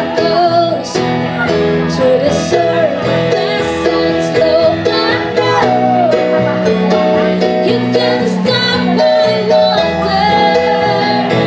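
Live band music amplified in a hall: a song sung over keyboard accompaniment, the melody moving over steady held notes.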